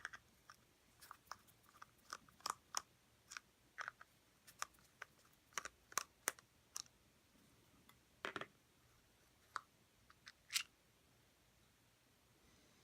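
Light, irregular clicks and snaps of plastic as the cover on a robot vacuum's drive-wheel gearbox is pried and unclipped, with a few sharper snaps among them.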